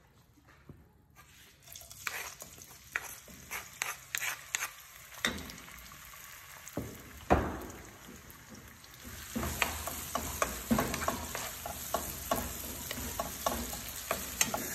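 A wooden spatula scraping and knocking spice paste out of a stone mortar, with several sharp knocks and a loud one about halfway. From about two-thirds in, the chili-shallot paste sizzles in hot oil in a wok while the spatula stirs and taps the pan.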